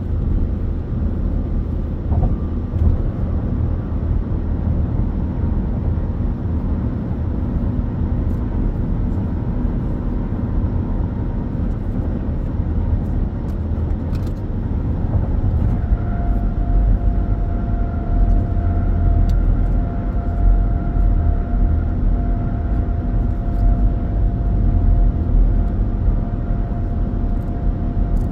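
Car travelling at highway speed, heard from inside: steady tyre and road rumble with engine hum. A faint steady whine joins about halfway through.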